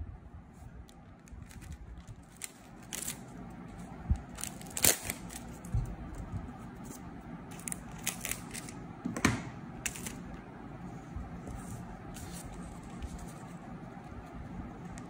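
Clear plastic tape being handled over a paper cut-out: pressed down, smoothed and folded, with scissors cutting the tape. Irregular sharp crackles and clicks, the loudest about five seconds and nine seconds in.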